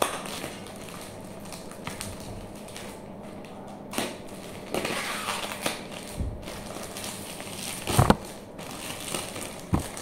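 Clear plastic wrapping being pulled off a stack of notebooks and crumpled: irregular crinkling and rustling, with a few louder crackles, the loudest about eight seconds in.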